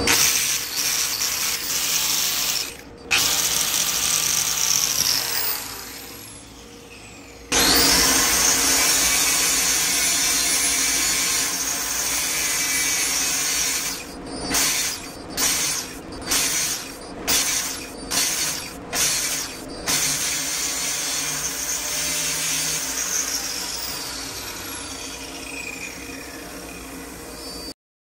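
Steel-fabrication noise: power tools working on steel stock, mostly continuous, with a run of about eight short separate bursts about halfway through.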